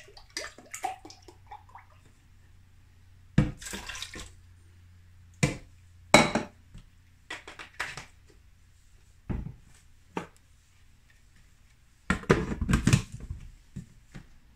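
Almond milk poured into a measuring cup and into a blender jar, with scattered sharp knocks of cups and a carton being set down on the countertop. Near the end comes a busier cluster of pouring and knocking as the jar is filled and closed.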